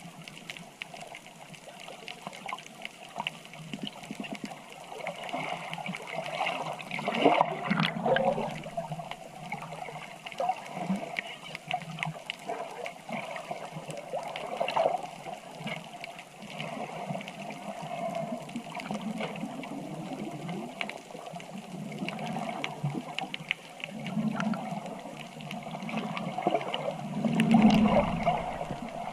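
Water gurgling and sloshing, with scattered bubbling. It swells louder about seven seconds in and again near the end.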